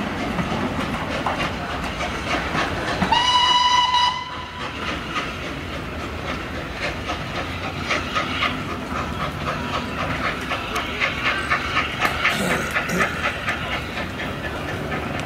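Heritage train pulling away: one steady whistle blast about a second long, about three seconds in, then a regular rhythmic beat of about three a second as the train draws away.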